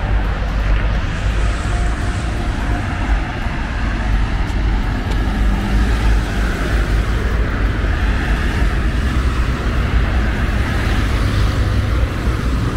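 Steady city-street traffic noise with a continuous low rumble and no distinct separate events.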